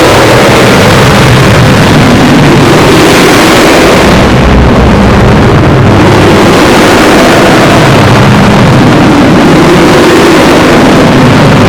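A sneeze sample buried under stacked digital audio effects, a vocoder among them: a continuous, heavily distorted noise clipped at full volume, with no single sneeze standing out.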